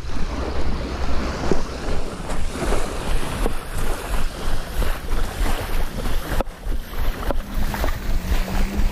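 Footsteps crunching on a pebble-and-gravel beach, about two steps a second, with wind buffeting the microphone and small waves washing on the shore.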